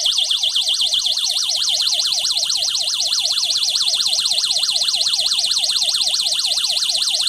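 Home security alarm system's siren sounding, set off as a test. It is a loud, shrill electronic siren that sweeps rapidly up and down about five times a second.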